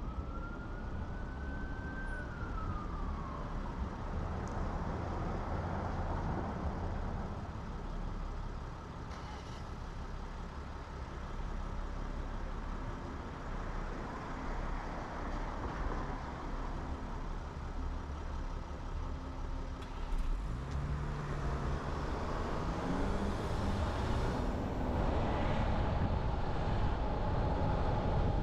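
Road noise from driving through city traffic, with an emergency vehicle's siren wailing: one clear rise and fall in the first few seconds, then fainter wails later.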